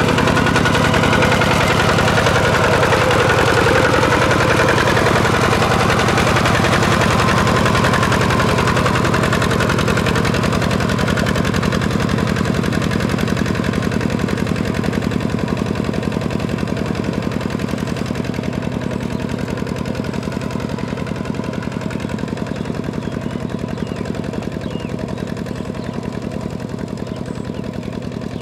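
Kubota two-wheel walking tractor's single-cylinder diesel engine running steadily under load with a fast, even beat as it ploughs through wet paddy mud. It grows gradually fainter from about halfway through as the tractor moves away.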